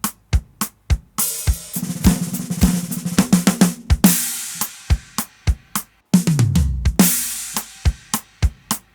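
Recorded drum kit played back from a mix: a steady beat of about four hits a second with cymbal crashes about a second in, near the middle and near the end. Tom fills roll around in between, and a fill about six seconds in drops in pitch down the toms.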